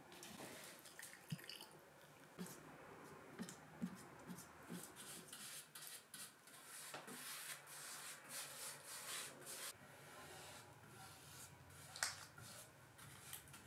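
Paint being stirred in a can, then a paintbrush spreading white paint onto a wooden frame: faint, irregular wet swishes and scrapes, with one sharp tap near the end.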